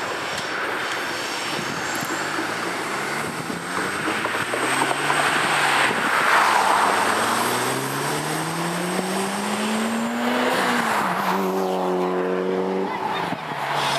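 Indian Pacific passenger train rolling past, a steady rumble of carriage wheels on the rails, with its NR class diesel locomotives' engine note rising slowly in pitch and then holding steady near the end.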